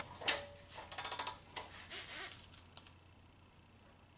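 Light metallic clicking from a half-inch wrench and long socket extension being fitted and worked on a starter mounting bolt: a sharper click just after the start, a quick run of ticks about a second in, and a few more near two seconds before it dies away.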